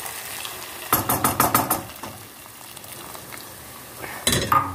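Hot water being poured into a stainless steel stew pot, followed by a quick run of metal clatters about a second in as the ladle and pot knock together, and a ringing metal clank near the end. A low sizzle of the cooking vegetables runs underneath.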